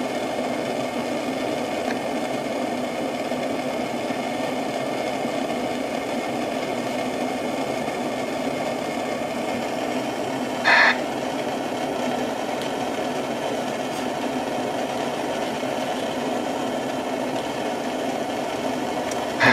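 A steady mechanical running noise at an even level, with one brief sharp click about halfway through.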